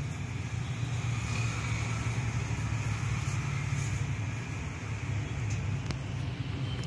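Steady low background rumble with a few faint short ticks near the end.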